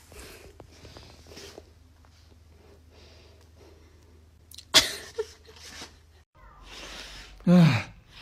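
Cat sounds: a short, sharp burst about halfway through, then a loud, low call that falls in pitch near the end.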